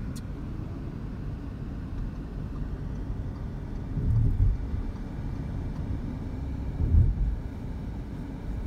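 Steady low road rumble inside a moving car's cabin, with two brief louder low surges, one about four seconds in and one about seven seconds in.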